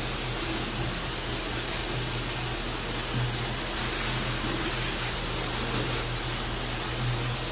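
Coolant washdown gun spraying a steady jet of coolant through a CNC mill's enclosure, flushing aluminum chips toward the chip auger: a constant hiss and splash over a steady low machine hum.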